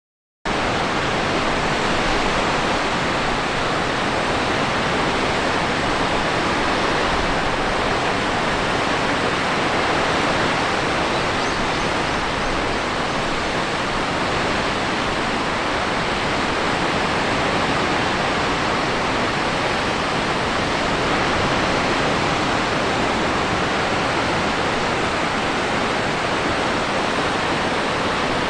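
Steady roar of typhoon wind and heavy surf, a dense, even rush of noise that starts abruptly just after the start.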